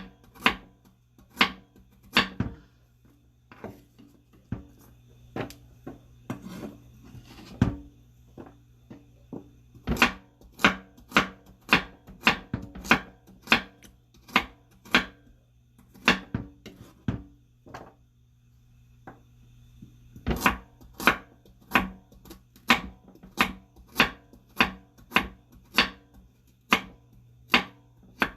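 Kitchen knife chopping vegetables, sharp strokes against the board at about one and a half a second, slowing and sparser for a few seconds near the start and pausing briefly about two-thirds of the way through before resuming.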